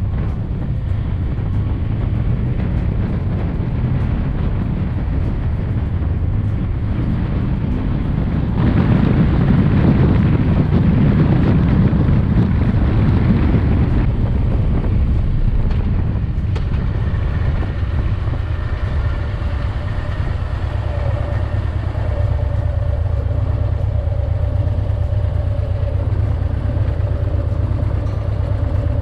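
Harley-Davidson Electra Glide's roughly 1700 cc V-twin engine running at road speed, with heavy wind noise on the microphone. The wind rush swells from about nine to fourteen seconds in, and a steady whine comes in about halfway.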